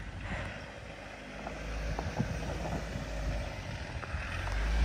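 A vehicle engine running as a low rumble that grows louder through the second half.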